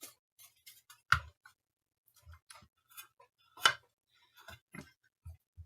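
Plastic case of a bench multimeter being handled on a desk: a scatter of light clicks and dull knocks, with two sharper knocks, one about a second in and one just past halfway.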